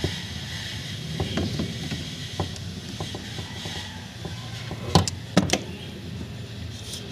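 Hand work on car parts: scattered clicks and knocks of parts and clips being fitted, with two sharper knocks about five seconds in.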